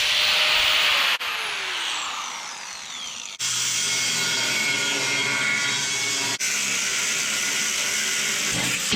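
Electric power tool cutting steel angle iron with a steady high hiss, in several short stretches that start and stop abruptly. In one stretch the pitch slides steadily down as the motor winds down.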